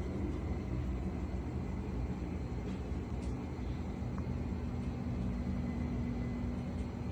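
A steady low mechanical drone with a constant hum tone running through it.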